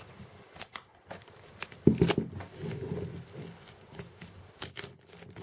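A cardboard gift box being handled and pried open by hand: scattered small scrapes, taps and rustles of fingers on card, with a louder scrape about two seconds in.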